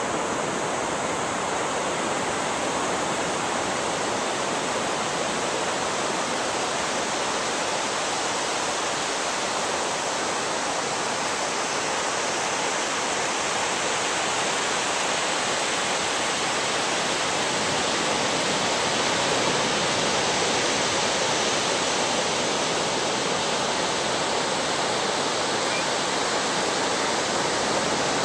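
Ocean surf breaking and washing up on a sandy beach: a steady, even rush of noise that grows a little louder in the second half.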